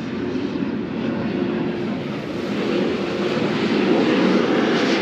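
Motorcycle engine running, a steady drone that grows louder over a few seconds.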